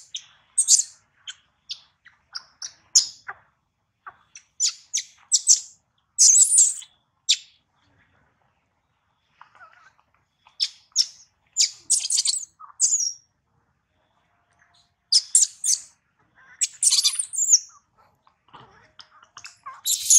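Baby long-tailed macaque crying: clusters of short, shrill, high-pitched squeals with brief pauses between bouts.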